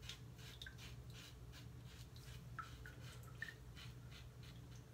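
Safety razor scraping through lathered stubble on the neck in short, quick across-the-grain strokes: faint scratchy rasps, several a second.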